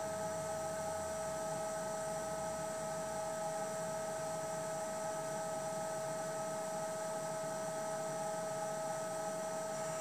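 VESDA VLP aspirating smoke detector's aspirator fan running, drawing air through its sampling pipes: a steady hum with an even hiss.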